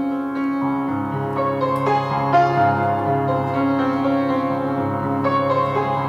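Piano music with slow, sustained notes and chords, a new note or chord coming in about every second.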